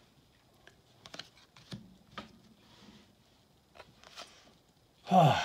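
Baseball cards being thumbed through by hand: faint, scattered soft clicks and slides of card stock. About five seconds in, a loud sigh-like voice sound that falls in pitch.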